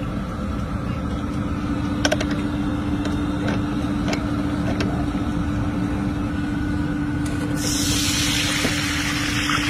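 Steady low rumble and hum with a few sharp clicks while a hand-cranked screw press is turned. About seven and a half seconds in, a loud hiss of hot oil sizzling begins as dough strands are pressed into a pan of frying oil.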